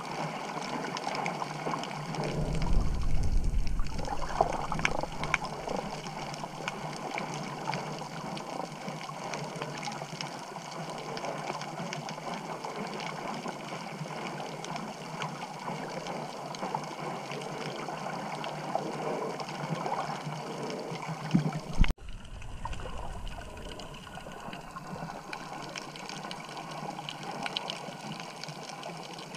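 Underwater water noise picked up by a camera held below the surface while snorkeling: a steady muffled wash with fine crackling. About three seconds in there is a louder low rush, and about 22 seconds in a sharp pop and a brief dropout.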